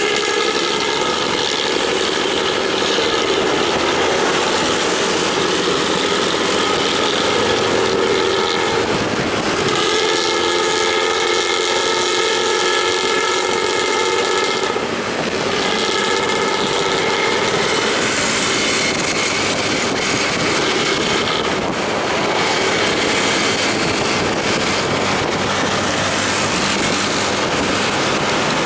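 Multi-tone bus air horn (telolet horn) sounding a held chord in three long blasts, the last one shorter, over steady traffic noise; after the horn stops only passing traffic is heard.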